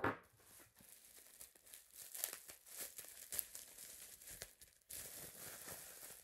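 Plastic bubble wrap crinkling and crackling as it is pulled off a small nail polish bottle, a continuous run of fine rustles. A sharp knock comes right at the start.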